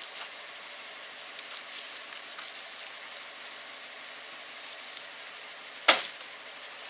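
Steady outdoor background hiss with faint scattered ticks, and one sharp knock about six seconds in.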